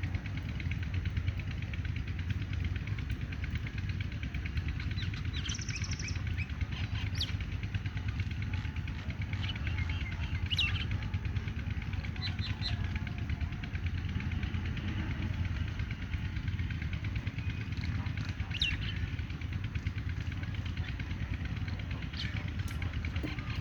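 Common mynas giving scattered short chirps and whistles over a steady low rumble, like an engine running nearby, that goes on throughout.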